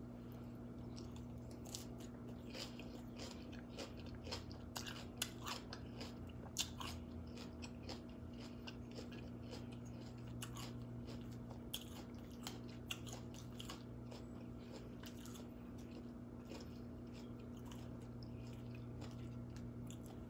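Close-up crunching and chewing of a mouthful of raw mixed salad: lettuce, cucumber, sweet pepper and carrot. Many sharp crunches come in the first two-thirds and thin out toward the end, over a faint steady low hum.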